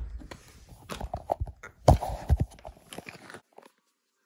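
A plastic toy figure is handled and tapped along a wooden floor: a run of uneven light taps and knocks. The sound cuts off about three and a half seconds in.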